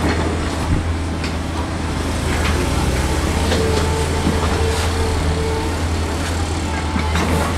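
Hitachi 48U mini excavator's diesel engine running steadily under load as the arm and bucket dig, with scattered short knocks and clanks. A faint steady whine joins about halfway through.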